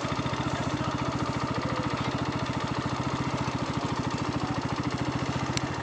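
Motorcycle engine running steadily under way, a low hum made of even, rapid firing pulses.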